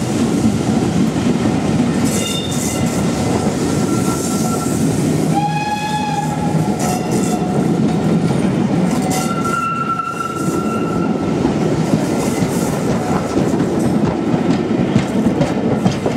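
Heritage railway passenger coaches rolling past at close range: a steady rumble with wheels clattering over the rail joints. A brief high-pitched tone sounds about five and a half seconds in, and another, higher one is held for about a second and a half around the tenth second.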